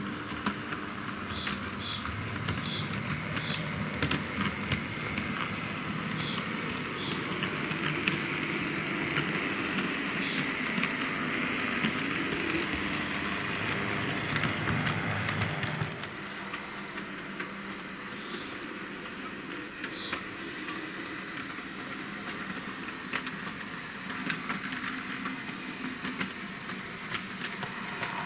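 H0-scale model trams running on the layout: the small electric drive motors and wheels on the track make a steady running sound with frequent short clicks over rail joints and points. The sound drops in level about halfway through.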